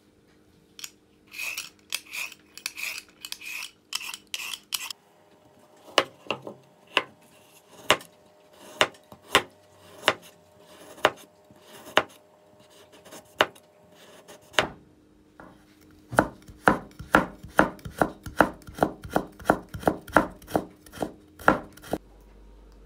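Knife slicing a carrot on a bamboo cutting board, each cut a sharp knock of the blade onto the wood. After a few softer scraping strokes, the cuts come about once a second, then faster, about three a second, in the second half.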